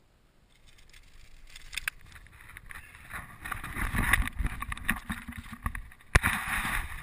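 Handling noise from the camera being picked up and moved about: rubbing and rustling on the microphone with scattered clicks and a deep rumble, building up over the first few seconds, with one sharp knock about six seconds in.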